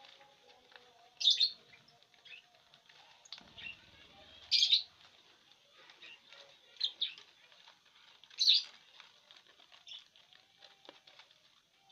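Fischer's lovebirds giving short, sharp chirps, four of them loud and a few fainter, over a light crackle of dry corn husk being picked and torn. There is a brief flutter of wings a few seconds in.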